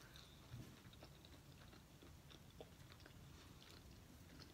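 Faint chewing: soft, scattered mouth clicks over near-silent room tone.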